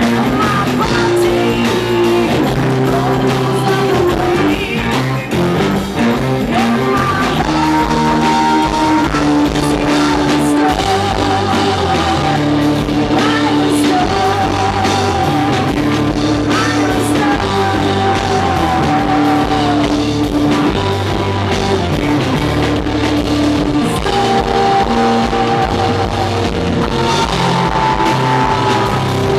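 Live rock band playing, with a woman's voice singing long held notes with vibrato over electric guitar, bass and drums.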